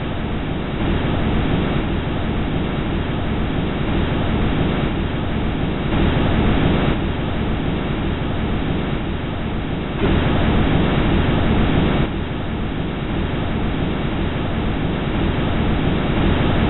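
Sound recorded by the Huygens probe's microphone while it descended through Titan's hazy atmosphere: a steady rushing noise made of several recordings joined into one, with sudden shifts in level a few times along the way.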